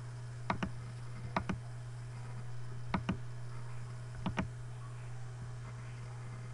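Computer mouse button clicked four times, each click a quick double tick of press and release, a second or so apart, over a steady low hum.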